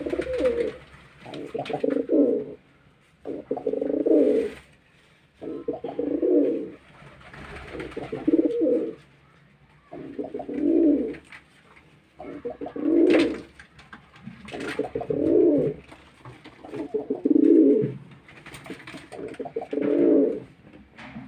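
Pigeon cooing over and over, a low coo about every two seconds, with a few sharp clicks in between.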